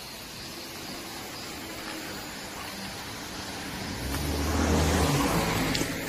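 A car engine running close by, with a low hum that grows louder about four seconds in.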